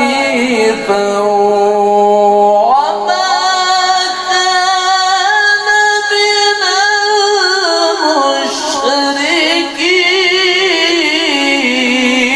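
A man reciting the Quran in melodic tilawah style, drawing out the end of the word "hanifa" in one long unbroken phrase. The phrase is built of held notes, a rising glide a few seconds in, and quavering ornaments near the end.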